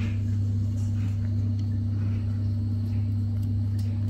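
A steady low hum with a few faint ticks.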